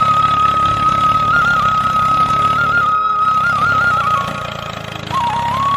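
An engine running with a steady low chug, under a loud high steady tone that steps up and down between a few nearby pitches, with a short dip in loudness near the end.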